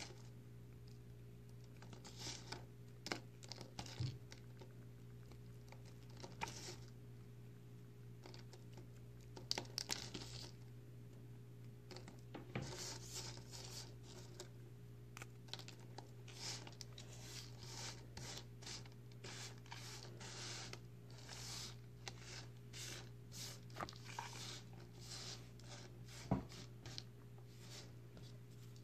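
Dry, crumbly recycled soap being broken up between fingers and soap flakes being raked and stirred by hand, giving irregular crunches, crackles and rustles, with one sharper snap near the end. A steady low hum runs underneath.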